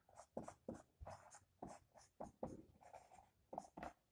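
Faint strokes of a felt-tip marker on a whiteboard as letters are written, about a dozen short scratches in quick succession with a brief pause about three seconds in.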